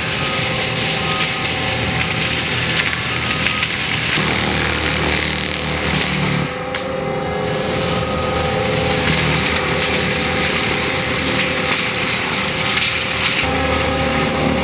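Forestry mulcher on an ASV 135 track loader grinding up wood: a steady crunching and splintering from the toothed rotor over the machine's held engine and hydraulic tones, easing off briefly about halfway.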